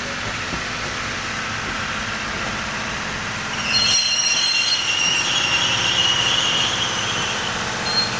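Blue passenger coaches of a diesel-hauled train rolling past with a steady rumble, then from about three and a half seconds in a high-pitched wheel squeal sets in as the train slows into the station.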